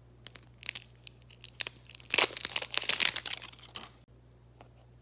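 Wrapping on a mystery blind ball being torn and crinkled open by hand, in uneven rustles and small clicks that are busiest about two to three seconds in.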